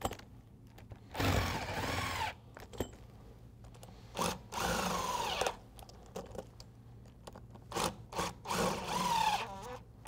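Cordless drill with a socket running nuts down onto the bolts of Flexco bolt solid plate fastener end plates, in three short runs of about a second each. The pitch drops during the later runs.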